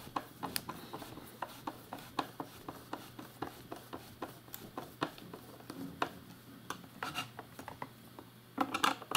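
Hand screwdriver driving M3 wood screws into a 3D-printed plastic lid: a run of short clicks and scrapes, about three or four a second, with a louder cluster near the end.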